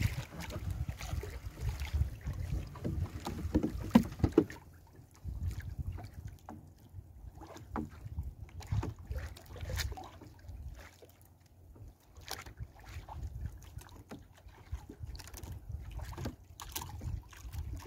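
A fishing net being hauled over the side of a small wooden outrigger boat, with wet rustling, knocks and low wind rumble on the microphone. After about four seconds it drops to quiet scattered clicks and ticks as a fish is picked out of the net by hand.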